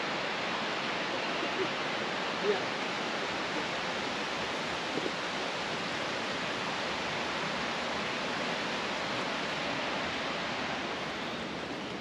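Steady rushing of running water from a creek or falls, an even hiss that does not change.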